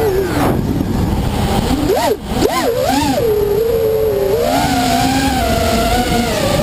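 Freestyle drone's electric motors and propellers whining, recorded by the onboard camera. The pitch falls low, swoops up and down quickly a few times about two seconds in, then climbs again near the end as the throttle changes, over a steady rush of air noise.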